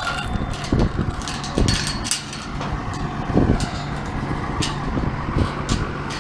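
A vehicle engine running steadily at low revs, with several dull thumps and scattered clicks and rattles over it.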